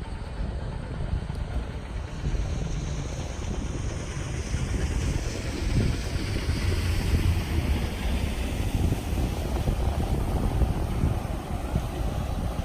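Wind buffeting the microphone with a low, uneven rumble, over a broad rushing noise that swells through the middle.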